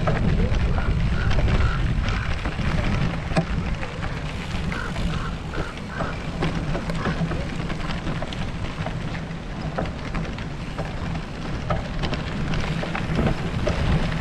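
Wind rumbling on the microphone of a camera carried on a moving bicycle, with a steady crackle and scattered small clicks and rattles.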